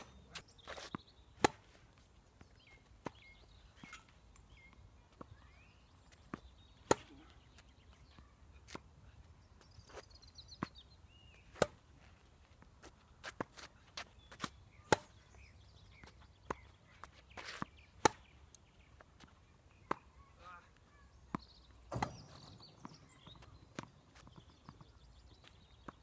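Tennis rally: racket strings striking the ball and the ball bouncing on the court, a string of sharp pops at irregular intervals, mostly a second or two apart.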